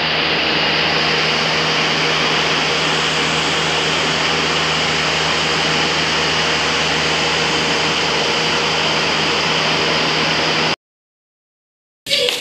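Steady, loud mechanical whir and hiss with a low hum underneath, unchanging, that cuts off abruptly near the end.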